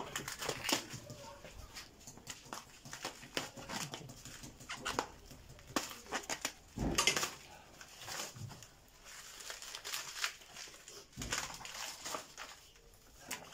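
Irregular crinkling and crackling of a plastic meat tray and its wrapping as frozen meat is pulled out and handled, with a few soft knocks.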